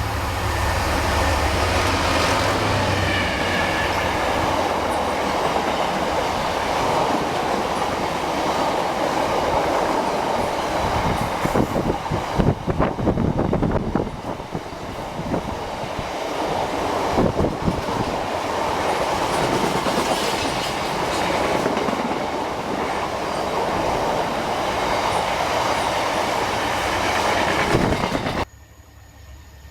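A diesel train passing close by, its wheels clattering over rail joints with a deep engine hum at first. It cuts off suddenly near the end.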